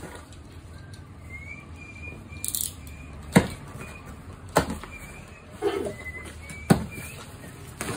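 Plastic packing straps on a cardboard carton snapping as they are cut with a utility knife: three or four sharp snaps a second or so apart, with a short rustle of the straps before them.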